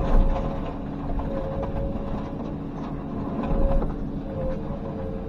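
Komatsu PC210 hydraulic excavator working under load, a steady engine drone with a whine that wavers in pitch, while its bucket crushes a mobile home wall with scattered crackling and crunching of siding and framing. The crunching is loudest right at the start and again near four seconds in.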